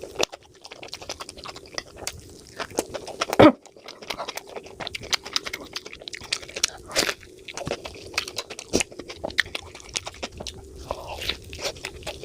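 Close-miked eating of momos and masala Maggi noodles: a dense, irregular run of wet chewing clicks and crunches, with one louder bite about three and a half seconds in.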